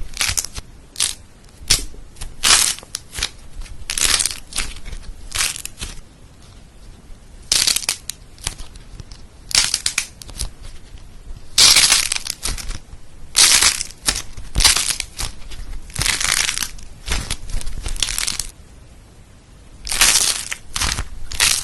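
Food-shaped slime being squeezed and pressed by hand, giving a series of crunchy, crackling bursts in an uneven rhythm. Some bursts are short snaps and others are longer crackles.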